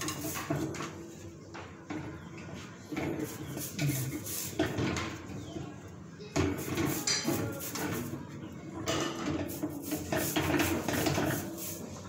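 Metal wire guard of an electric fan being scrubbed and handled at a kitchen sink: irregular clinks, rattles and scraping of the thin wire grille.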